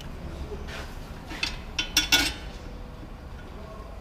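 Metal tools clinking as they are handled: a few sharp clinks, most of them close together between about one and a half and two and a half seconds in.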